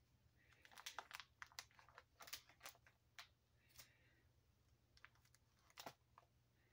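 Plastic card-sleeve pages in a ring binder being handled and turned by hand: a run of quiet crinkles and clicks in the first three seconds, then a few more later on.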